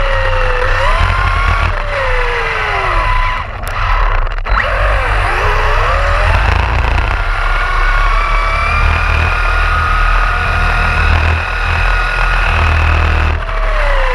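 Brushless electric drive of an Arrma Fazon BLX 6S RC truck, heard from on board, whining and changing pitch as the throttle is opened and eased, over a heavy low rumble. The whine falls away briefly about four seconds in, then rises again.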